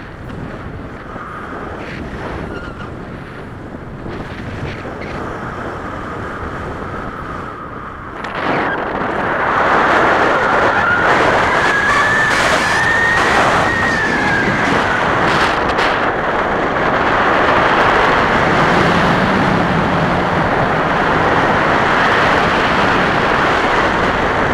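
Wind rushing over the microphone during tandem paraglider flight; it gets much louder about eight seconds in and stays loud, with a faint whistle that rises and then falls in pitch.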